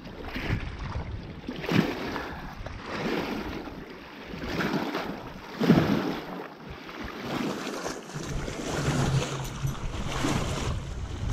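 Small waves splashing and washing against a rocky shoreline, rising and falling in surges, with wind buffeting the microphone.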